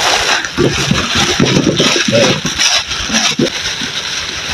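A black plastic bag rustling and crinkling as a bagful of salak (snake fruit) is tipped out onto bamboo poles, the fruits knocking and rolling on the bamboo in a quick run of dull knocks over the first three seconds or so.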